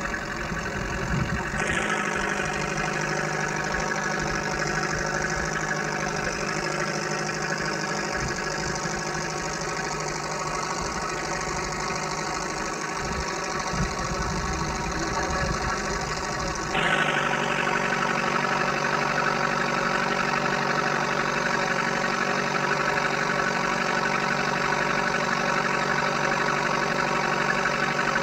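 Fishing boat's engine running steadily, a continuous hum. The sound changes abruptly about 2 seconds in and again about 17 seconds in, and is louder after the second change.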